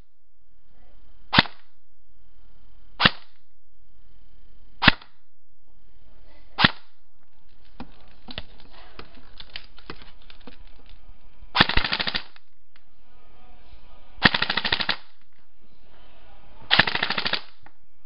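Airsoft electric gun (AEG) PDW test-firing: four single semi-auto shots about two seconds apart, then a fainter rapid rattle, then three short full-auto bursts of about half a second each.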